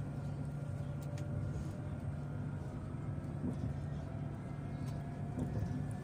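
Electric tram running along its track, heard from the cab: a steady hum with faint whining tones from the traction drive that rise gently in pitch as it gathers speed.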